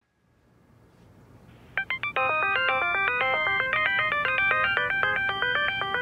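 Mobile phone ringtone playing a quick electronic melody of stepping notes, several sounding together, starting about two seconds in: an incoming call.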